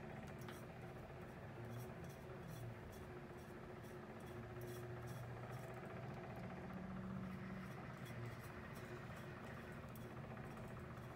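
Small tumbler cup-turner motor running with a faint low hum as it spins a glitter tumbler, with light, fairly regular ticks a few times a second.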